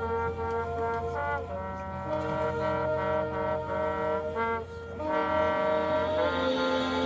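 A marching band's brass section playing a slow passage of long held chords that move to new chords every second or two.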